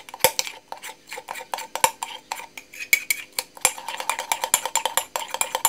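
A spoon stirring a thick egg-yolk, honey and butter mixture in a cup, clinking rapidly against the sides with a ringing note. There is a short lull about a second in.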